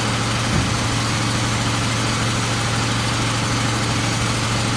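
Engine running at a steady idle, a constant low hum with an even wash of noise over it.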